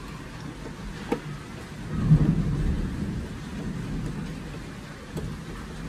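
Small screwdriver turning a screw in the base of a plastic toy stove, with low rumbling handling noise as the toy is held and shifted, louder about two seconds in. A couple of sharp clicks, one after about a second and one near the end.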